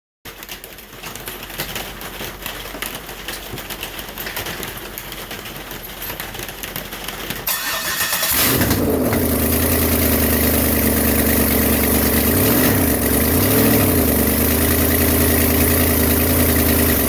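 Vortec V8 engine cranking on the starter for about eight seconds, then catching with a brief burst and settling into a steady idle.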